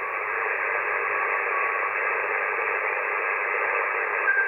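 Icom IC-7300 receiver audio on the 20 m band: a steady hiss of band noise confined to the narrow SSB passband, with faint traces of signals in it. The radio's internal noise blanker is on, and the audio carries the distortion that it causes.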